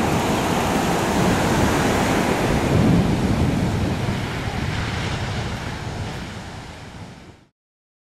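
Heavy ocean surf: big waves breaking and washing up a sandy beach, a steady rush of white water. It fades away over the last few seconds and cuts off shortly before the end.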